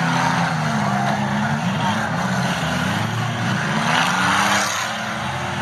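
Engines of several demolition derby cars running and revving together in the arena, their pitch rising and falling, over a dense wash of noise.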